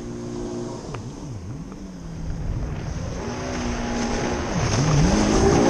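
Stand-up jet ski's two-stroke engine running on the water, the throttle chopped and opened again so the pitch dips and climbs back several times. It grows louder toward the end as the ski comes closer.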